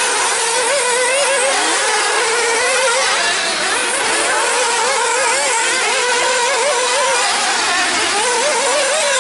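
Several 1/8-scale nitro off-road buggies racing, their small two-stroke glow-fuel engines running at high pitch. The engines rev up and down over one another continuously.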